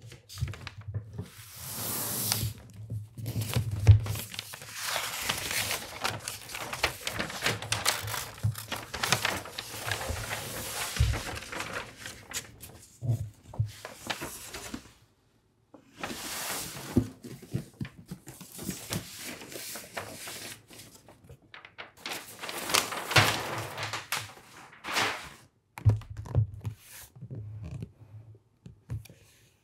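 Stiff kraft wrapping paper rustling and crinkling as it is unfolded and pulled off a cardboard box, in irregular bursts with short pauses. A few dull thunks come from the box being handled.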